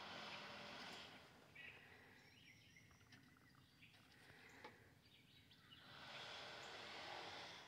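Near silence: faint outdoor ambience that swells softly twice, with a few faint bird chirps.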